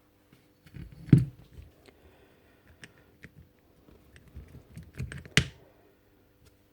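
Hard parts of a DeWalt DCH333 rotary hammer clicking and knocking as it is taken apart by hand, a string of light clicks with two sharper knocks, one about a second in and one about five seconds in.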